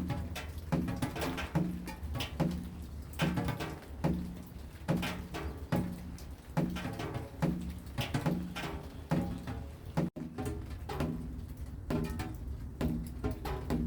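Steady rhythmic tapping, each beat carrying a short low tone, repeating about once a second. The sound cuts out for an instant about ten seconds in.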